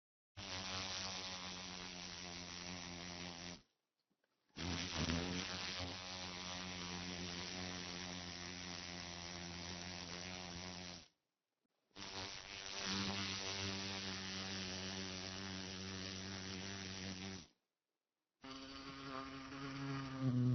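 A flying insect buzzing in four separate stretches of a few seconds each, broken by short silences, its pitch wavering slightly as it moves about.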